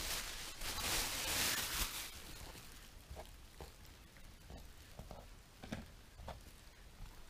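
Rustling for about the first two seconds, then scattered faint crunches as a mini rex rabbit chews vegetables.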